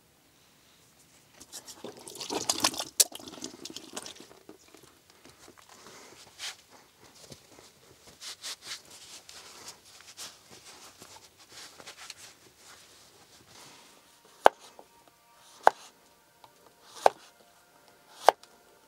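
A kitchen knife cutting a zucchini on a wooden board: four sharp knocks, a little over a second apart, in the last few seconds. Before that, softer irregular crackling and rustling.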